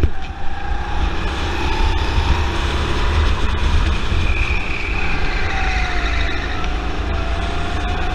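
Go-kart's Honda engine running under throttle, its pitch dipping about halfway through and climbing again as the kart slows and accelerates through the corners. Heavy wind rumble on the kart-mounted camera's microphone.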